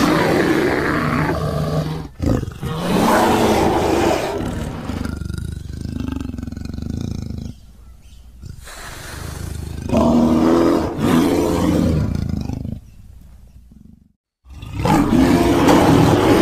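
Cave bear creature sound effect built from stock big-cat and bear recordings: a run of long, deep animal roars, about four in all, separated by quieter growling stretches, the last starting about two seconds before the end.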